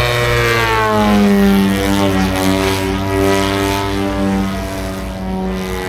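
Radio-controlled model airplane's engine and propeller running at high power; the pitch drops over about the first second as the plane passes, then holds in a steady drone.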